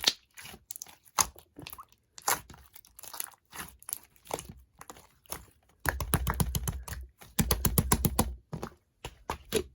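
Clear slime being squished and pressed by hand, giving scattered sticky clicks and pops, with two runs of rapid crackling clicks about six and seven and a half seconds in.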